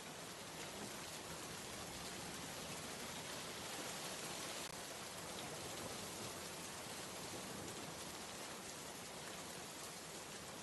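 Steady rain ambience: an even hiss of rainfall with no break or change.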